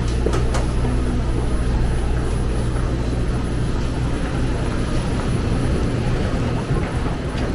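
Steady low mechanical drone of subway station machinery, with a couple of faint clicks about half a second in. The drone weakens near the end.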